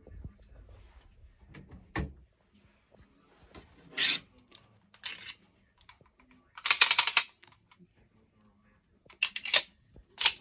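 Metallic clicks and clacks of a semi-automatic pistol being handled and reloaded, sharp and separate: one about two seconds in, two more around four and five seconds, a longer rattling clatter just past six seconds, and a quick run of clicks near the end.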